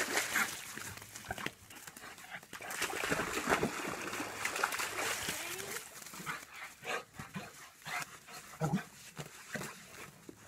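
A dog splashing out of shallow lake water at the start, then scuffling and rolling in wet sand, with a string of short dog noises near the end.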